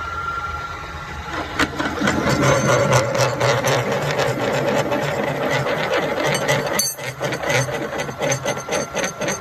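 Drill press on automatic power feed, its drill bit cutting into steel to enlarge a 5/8-inch hole to 3/4-inch: a steady motor hum with a rapid rattling chatter from the cut. The cutting starts about a second and a half in and dips briefly near the end.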